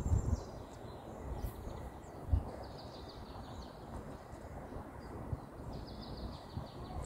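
Wind rumbling on the microphone, with birds chirping in short runs in the background and a brief low thump about two and a half seconds in.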